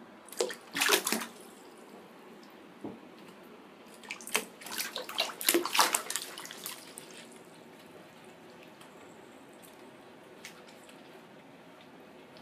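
Bearded dragon splashing in shallow bathwater as it scrambles about the tub, in two bouts: a short one about half a second in and a longer one from about four to seven seconds in.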